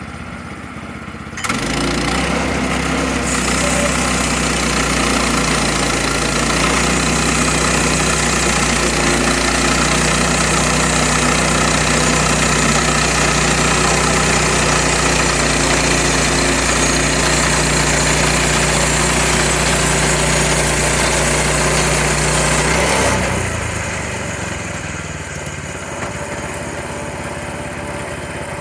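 Portable sawmill's small gas engine running steadily at high speed with a loud rushing noise over it, then dropping to a quieter, lower run about 23 seconds in.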